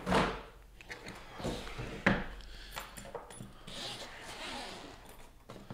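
A hard plastic carrying case being handled and opened: a knock, a sharp click about two seconds in, then rubbing and scraping as the lid is worked open.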